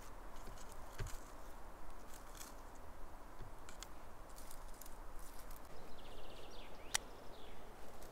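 Crackling and rustling of dry twigs and low shrubs on a forest floor as someone moves through them, with a sharp snap about seven seconds in. A short bird trill sounds about six seconds in.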